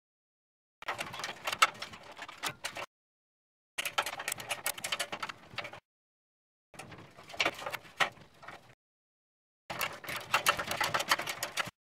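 Small metal clicks and rattles of hands fitting parts and wiring on an RV furnace's motor assembly, in four stretches of about two seconds with dead silence between them.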